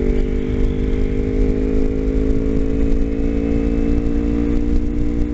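Kawasaki Ninja 250's parallel-twin engine running at a steady cruise on the road, its note easing slightly lower, with wind rumble on the helmet-mounted microphone.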